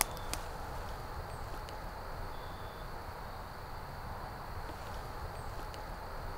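Quiet woodland ambience: a steady low rumble with a faint, thin, steady high tone and a few faint clicks.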